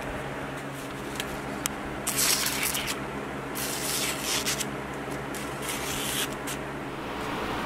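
A hand-forged 52100 carbon-steel knife slicing through a sheet of newspaper, testing its edge: a short crisp rasping cut about two seconds in, then a longer run of slicing about a second and a half later. A steady low hum runs underneath.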